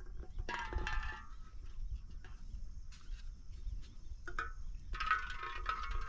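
Two short bursts of animal calls, one about half a second in and one near the end, over a steady high-pitched hum and low wind rumble. Scattered clicks and rustles come from gear being handled in a bag on rock.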